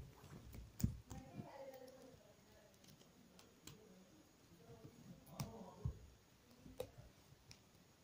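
Plastic segments of a Rubik's snake twist puzzle clicking as they are turned by hand: a few faint, irregular clicks.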